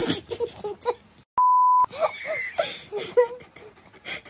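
Censor bleep: a single steady pure tone lasting about half a second, a second and a half in, dubbed over a swear word.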